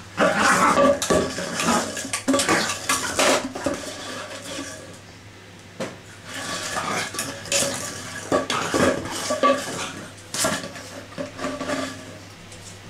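A pug chewing and shoving an empty plastic bottle across a hard kitchen floor: irregular crinkling and clattering in spells, with short quieter gaps.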